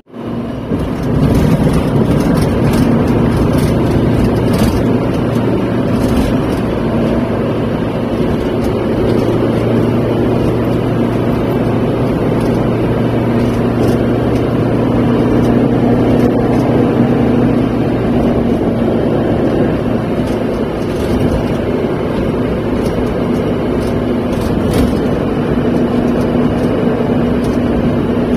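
Steady drone of a car driving along at a constant speed, heard from inside the cabin: road and engine noise.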